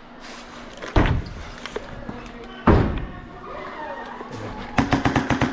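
Two loud thuds, about a second in and near the three-second mark, then an airsoft gun firing rapidly on full auto near the end, a fast stream of sharp cracks.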